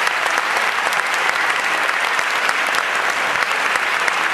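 Audience applauding: many hands clapping in a dense, steady patter that holds at an even level.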